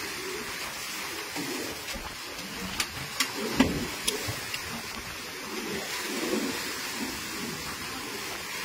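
Storm-surge seawater rushing in and washing across a flooded yard, a steady hiss of moving water. A few sharp knocks or splashes stand out about three to four seconds in.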